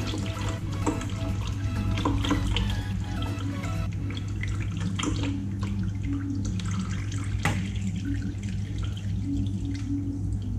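Used engine oil running out of a motorcycle's crankcase drain hole into a drain pan as a steady pouring trickle, with a few sharp clicks from the metal drain plug being handled. Background music plays underneath.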